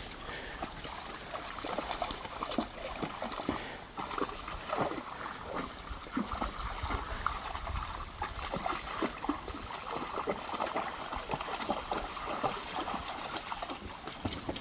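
Footsteps splashing through a shallow creek, an irregular run of steps over running water.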